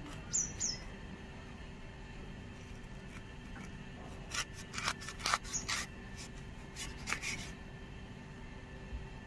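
Two short high bird chirps, then a cluster of crisp cutting and scraping sounds from about four to six seconds in, with another brief burst near seven seconds, as a raw green mango is peeled and sliced on a boti blade.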